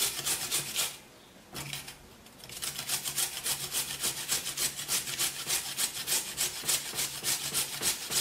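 A carrot being grated on a metal box grater, in a quick, even rhythm of rasping strokes. The grating stops briefly about a second in, then resumes and runs steadily.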